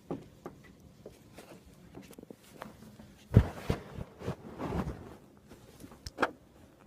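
Scattered knocks, clicks and rustling from someone moving about in a small room, with one louder thump about three and a half seconds in.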